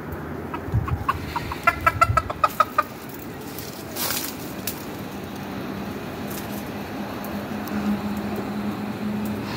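Chickens clucking: a quick run of about ten short clucks in the first three seconds. A steady low hum comes in from about halfway on.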